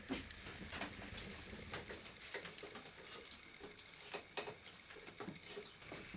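Wood fire burning in a fireplace, crackling with irregular small pops and snaps over a soft hiss.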